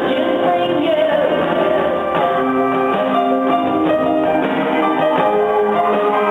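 Live concert music heard from a hall balcony: a woman singing over a band.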